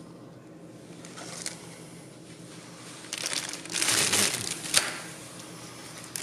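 Clear plastic bag crinkling as a bagged GPS antenna and its cable are handled. Loudest in a burst from about three seconds in to near five, ending in a sharp click.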